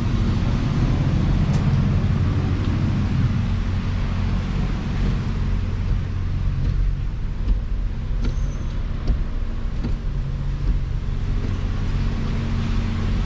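Nissan Cube's four-cylinder engine running steadily, its accessory-drive pulley suspected of bad bearings that make it chirp now and then.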